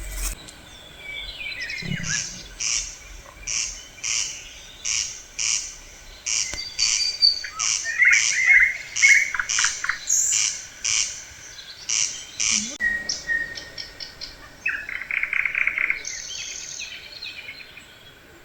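Birdsong outdoors: one bird gives a short call over and over, about twice a second, while other birds chirp and trill over it.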